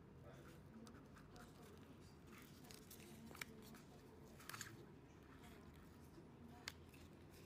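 Faint handling of PVC tarpaulin swatches in a sample book: soft rustling and a few light clicks as the vinyl-coated sheets are turned and pressed by hand, over a low steady hum.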